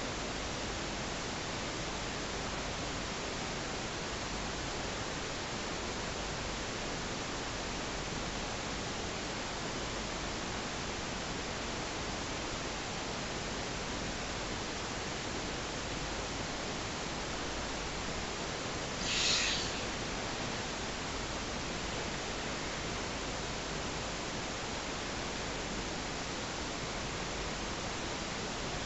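Steady, even hiss of a camera's microphone recording a quiet room. One brief soft hissing swell, about a second long, comes about two-thirds of the way through.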